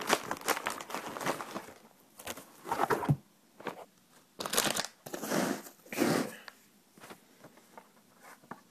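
Graphics card box and packaging being handled and opened: a quick run of crinkling clicks at first, then separate rustling, tearing bursts a second or so apart, tailing off for the last couple of seconds.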